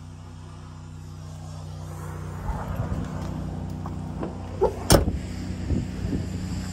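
Chevrolet Silverado pickup engine idling steadily. About two and a half seconds in, handling noise and scattered knocks join it, with one sharp knock about five seconds in.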